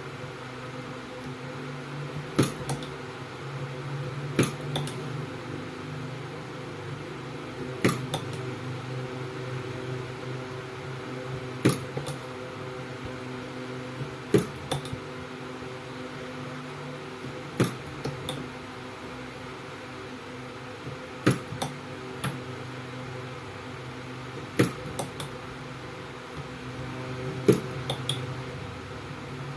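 Battery cell spot welder joining nickel strip to the cells of a 13S pack: a sharp snap every three to four seconds, often two close together, over the welder's steady electrical hum.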